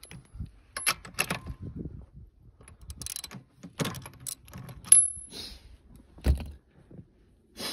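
Socket ratchet clicking and metal tools clinking while spark plugs are loosened and pulled from a snowmobile engine. The clicks come in irregular short runs, with one sharp ringing metal clink about five seconds in, the loudest sound.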